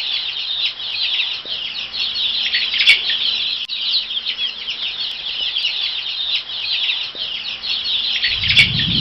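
A dense chorus of many small birds chirping rapidly and continuously. A low rumble comes in near the end.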